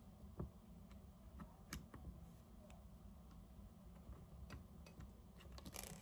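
Faint, irregular light clicks and ticks of tiny screws and a small battery cover being handled while being fitted to a pistol-mounted laser sight, with the clicks coming closer together near the end.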